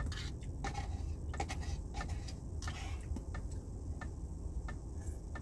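Drinking the last ramen broth straight from a paper cup: scattered small clicks of swallowing and lips, with a short slurp a little past halfway, over a steady low hum.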